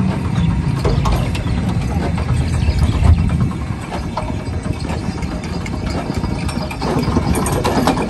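Ox-driven kharas flour mill at work: the large iron gear wheel and millstone turn with a steady low rumble and light clatter, with oxen's hooves on the dirt now and then.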